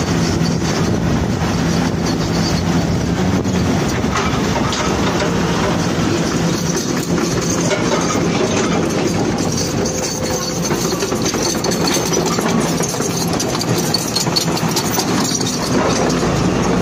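Heavy diesel truck engine running steadily as the tractor-trailer, loaded with an excavator on a multi-axle lowboy, moves slowly over gravel.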